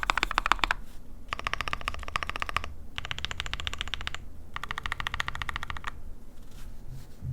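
Fast typing on a mechanical keyboard fitted with Krytox-lubed NovelKey Cream linear switches in an ai03 Vega with an aluminium plate and PBT keycaps: rapid runs of keystroke clacks in four bursts with short pauses between them, stopping about six seconds in.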